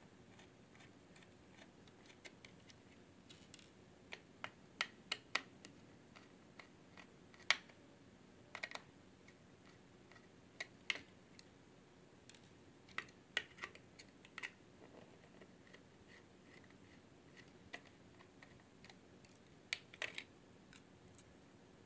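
Scattered light clicks and taps from a 2.5-inch laptop hard drive being handled and its circuit board worked loose, some coming in quick clusters of three or four, the last cluster near the end.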